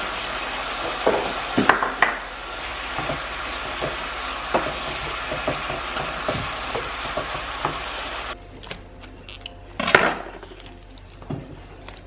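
Beef, onions and dried red chillies sizzling in a ceramic non-stick frying pan, stirred with a wooden spatula that knocks and scrapes against the pan. The sizzling cuts off about eight seconds in, and a single sharp knock follows near ten seconds.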